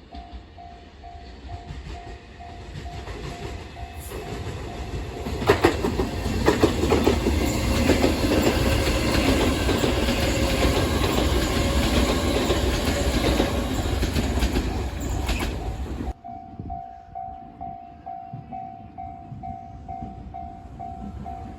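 A Japanese level-crossing warning bell rings about twice a second. A Chikuhi Line train then passes close by for about ten seconds, clattering over the rail joints and drowning out the bell. The train noise stops abruptly and the bell is heard ringing again.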